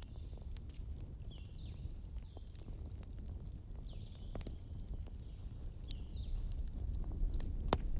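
Wood fire crackling in a hearth: scattered sharp pops, the loudest near the end, over a low steady rumble, with a few short high falling whistles.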